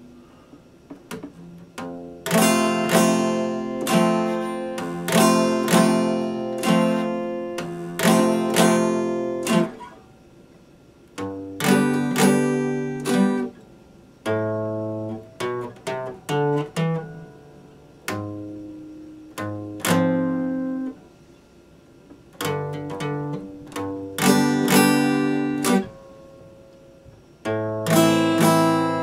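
Epiphone acoustic guitar played solo: chords strummed and left to ring, with a run of single picked notes in the middle and a few short pauses between phrases.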